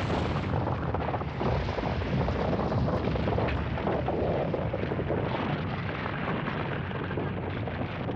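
Sound effect of a steady, deep rumbling roar with dense crackling, the kind of sound used for an earthquake or a volcanic eruption.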